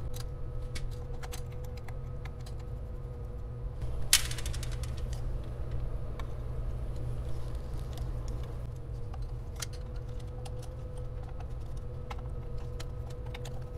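Light metallic clicks and taps of a small hand tool and loose parts on a Rochester Quadrajet carburetor being disassembled, with a brief rattle of quick clicks about four seconds in, over a steady low hum.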